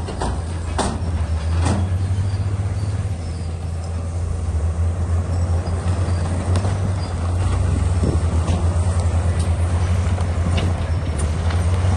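Crawler bulldozer's diesel engine running under load with a steady low drone, a few sharp metal clanks near the start, and growing louder with a fast pulsing beat from about halfway.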